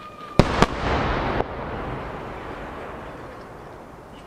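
Two 12-inch (size-10 shakudama) aerial firework shells bursting: two sharp booms about a quarter second apart, followed by a rolling rumble of echo that fades away over the next few seconds.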